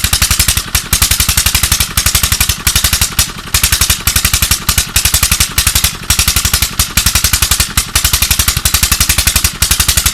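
Tube-well engine running with loud, rapid exhaust beats that break off briefly about once a second. This is the very bad sound the engine is known for.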